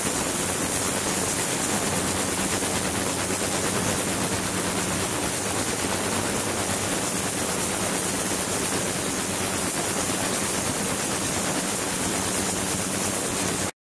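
Ultrasonic tank running with its transducers driving the water: a steady cavitation hiss with a thin high-pitched whine held above it and a faint low hum. It cuts out for a moment near the end.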